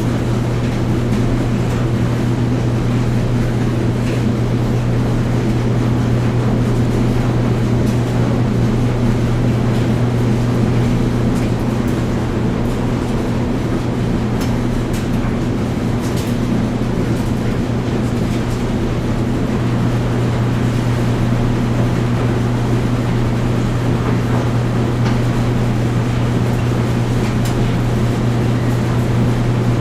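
Washing machine and clothes dryer running together: a steady, loud mechanical hum with a low drone and a few faint ticks.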